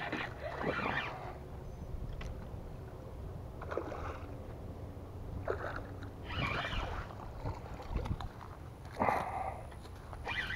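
Water splashing and sloshing at the bank in several short, irregular bursts, over a steady low rumble.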